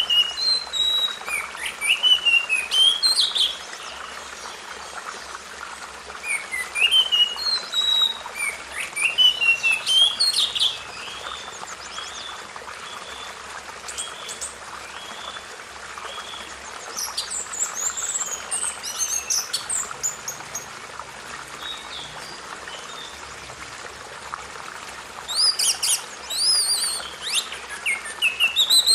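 Songbirds singing: bouts of quick, rising and falling chirping phrases every several seconds, over a steady background hiss.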